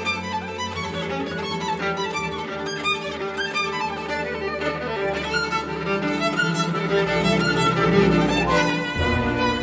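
Solo violin playing a fast, lively figure with orchestra: harp arpeggios, held clarinet and horn notes, and quick repeated figures in the strings. The music swells to a peak near the end.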